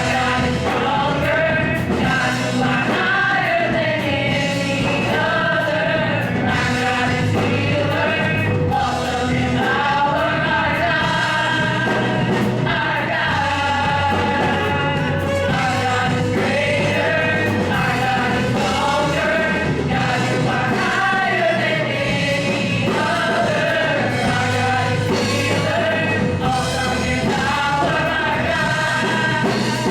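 Live gospel praise music: a worship band plays while singers sing together, the melody rising and falling over a steady bass.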